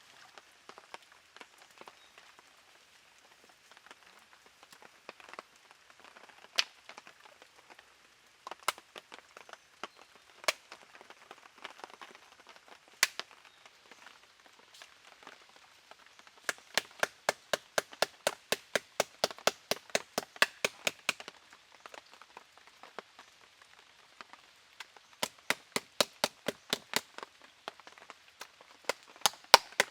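A knife chopping on a cutting board. A few single strokes come first, then quick runs of about four or five strokes a second.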